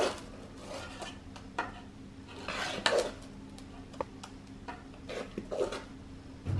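A spoon scraping and knocking against the side of an aluminium pot as thick fermented dosa batter is scooped out, in a few separate strokes, over a faint steady hum.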